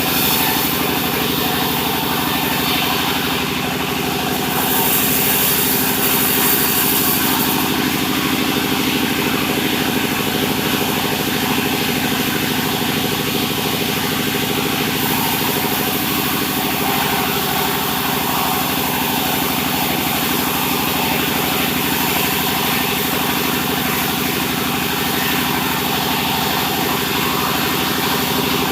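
Sawmill machinery running steadily, with a continuous engine drone. A high hiss swells about four seconds in, eases a few seconds later, and comes up again about halfway through.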